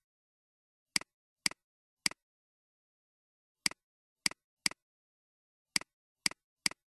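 Computer mouse clicking: nine sharp clicks in small groups of two or three, each a quick double tick of press and release, with dead silence between.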